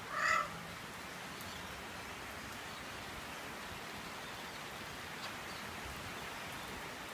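A male Eclectus parrot gives one short call in the first half-second, over the steady hiss of rain falling.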